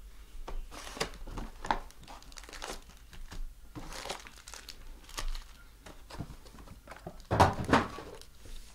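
Crinkling and rustling of foil-wrapped Panini Prizm trading card packs and their cardboard box being handled, in short bursts about a second apart, with a louder stretch of crinkling near the end.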